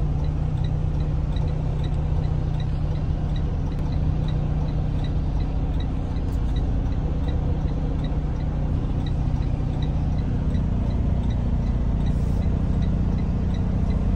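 Semi-truck diesel engine idling with a steady low hum, heard from inside the cab, with a light tick repeating about three times a second.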